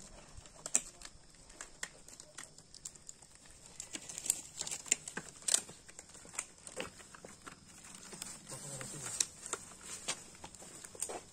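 Irregular crinkling and rustling of paper and latex gloves being pulled on and handled, with scattered sharp clicks and snaps.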